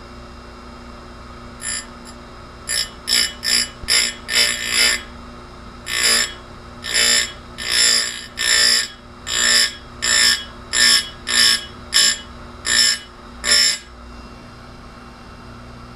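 Tecomec Jolly Evo chain grinder's spinning wheel being dipped into saw chain cutter teeth, making a run of about nineteen short, shrill grinds, one to two a second, over the steady hum of the grinder motor.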